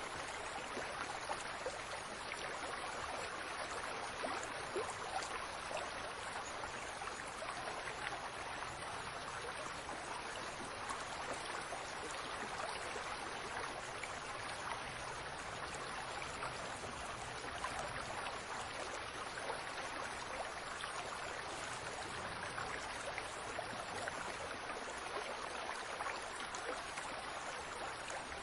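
Fountain water splashing steadily: an even rush of falling water with many small drips and splashes through it.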